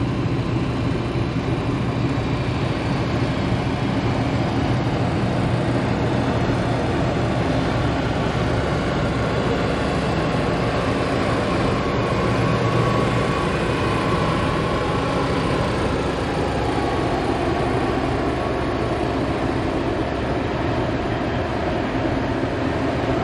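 A motor yacht running on plane at cruising speed: a steady engine drone with water rushing along the hull.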